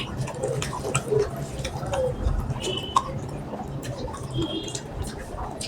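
Wet chewing and lip-smacking sounds of someone eating rice with mutton curry, made up of many small irregular clicks and smacks.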